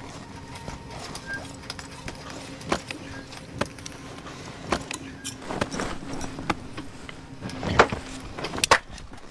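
Footsteps crunching through deep snow among bare brush, with scattered sharp snaps of twigs; the loudest crunches come near the end. A faint steady hum runs underneath.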